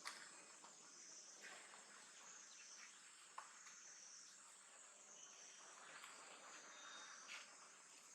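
Faint, steady high-pitched insect chorus of crickets or cicadas, slowly swelling and fading, with a few soft clicks scattered through it.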